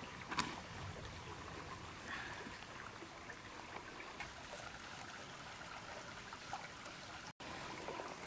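Steady trickle of a small stream, with a few faint small taps and clicks of handling.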